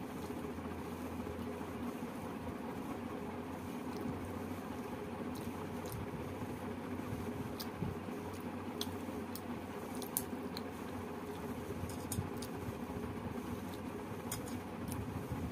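Close-miked eating: rice and chicken curry mixed by hand on a banana leaf and chewed, with scattered small wet clicks over a steady low hum.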